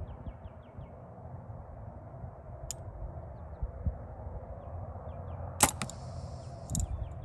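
Compound bow fired with an Ultra View hinge release: one sharp crack of the string and limbs about five and a half seconds in, then a lighter click about a second later. Steady low wind rumble on the microphone, with a bird's short repeated chirps.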